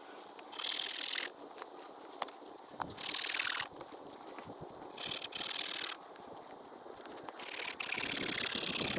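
Firewood being cut down by hand: a series of rasping strokes of a blade through wood, uneven in length with short pauses between them.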